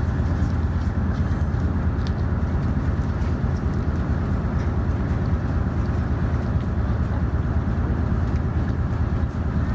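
Steady low drone of the mv Fanaraaken ferry's engines under way, with an even rushing noise over it.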